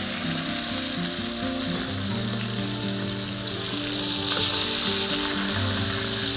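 Katla fish heads frying in hot oil in a kadai: a steady sizzle that grows louder about four seconds in.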